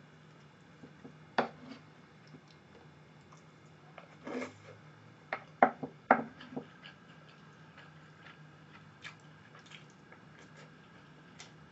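Sparse eating sounds: a few sharp clicks of chopsticks and a knife working a large sushi piece on a wooden board, loudest about four to six seconds in, then small mouth sounds as a bite is taken near the end.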